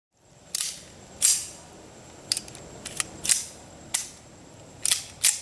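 Gunshots: about nine shots at uneven intervals, a few of them loud and close, the rest fainter.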